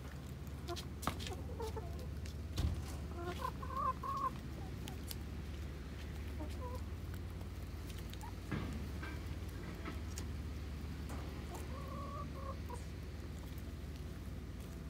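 Hens clucking in short calls while they feed, once about four seconds in and again around twelve seconds in, with sharp taps of beaks pecking at the food and ground in the first few seconds.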